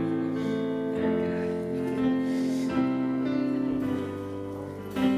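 Worship band playing a song's instrumental intro: strummed acoustic guitar with keyboard chords and violin. The sustained chords change every second or so.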